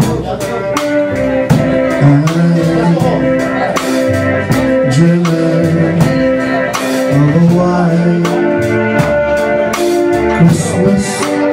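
Live band playing an upbeat song: a drum kit keeps a steady beat under a bass line, keyboard and guitar, with held melody notes on top.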